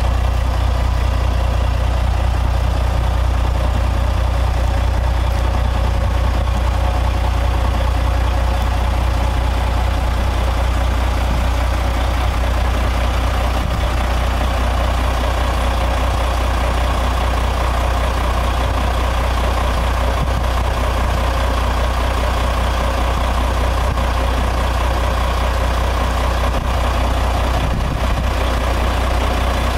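A 2005 Peterbilt 379's diesel engine idling steadily, with a deep, even low rumble.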